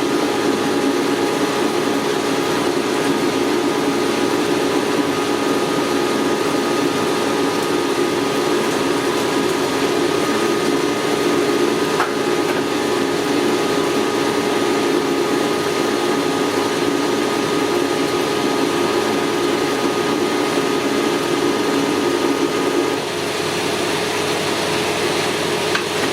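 Machine tool running steadily during machining: a constant mechanical hum with a few steady tones and a hiss over it. It eases slightly a few seconds before the end.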